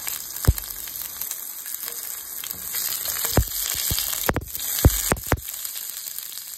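Onion chunks sizzling in hot oil in a nonstick pan, a steady hiss. A sharp knock comes about half a second in, then a cluster of knocks from about three and a half to five and a half seconds in as a silicone spatula stirs against the pan.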